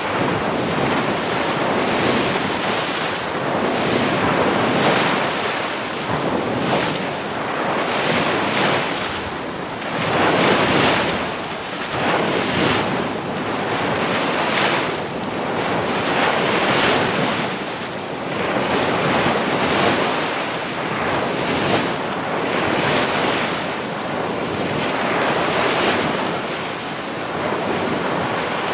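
Ocean surf: waves breaking and washing in a continuous rush that swells and eases every couple of seconds.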